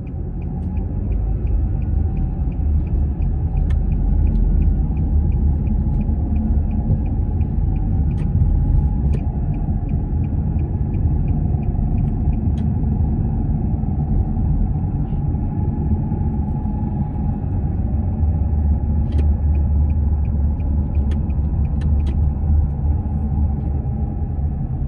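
Nissan X-Trail T31 on the move: steady low road and drivetrain rumble with a faint steady whine above it, slightly wavering in pitch. The owner suspects the CVT transmission or a wheel bearing as the cause of the whine. Light rapid ticking comes and goes in stretches.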